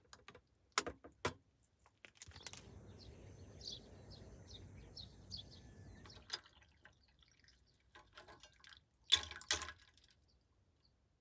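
Liquid pouring for about four seconds, with small drips, between a couple of light clicks early and two sharper knocks near the end.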